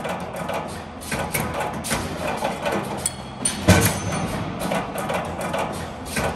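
CNC wire bending machine running: a steady motor hum under a string of clacks and knocks from the bending and feeding mechanism, with one louder knock a little past halfway.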